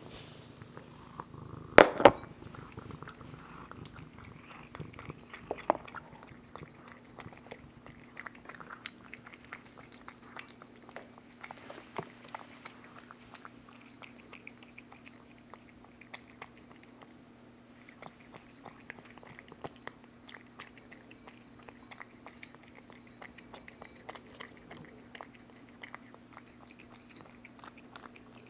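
A cat eating wet pâté cat food from a ceramic bowl: a steady run of small wet clicks as it chews and licks. About two seconds in there is a sharp double knock, the loudest sound, as the ceramic bowl is set down on the floor, and a smaller knock comes a few seconds later.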